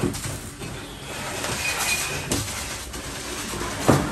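Lego combat robots clashing: small electric motors whirring steadily under several sharp plastic knocks, the loudest just before the end.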